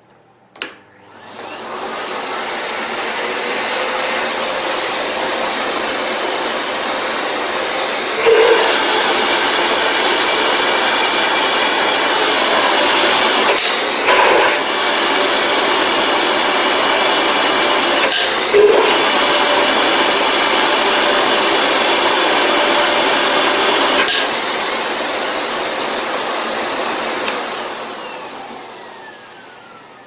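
Miele canister vacuum cleaner switched on at full power. Its motor builds up over a few seconds, then runs steadily while its hose draws on an airflow gauge. The tone shifts a few times with short knocks, and the motor winds down near the end.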